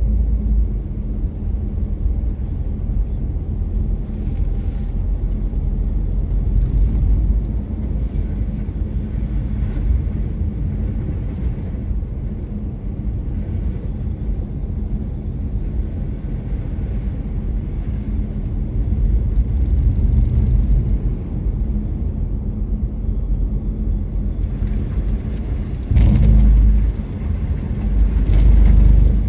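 Car driving on a snowy road: a steady low rumble of engine and tyres, swelling louder twice near the end.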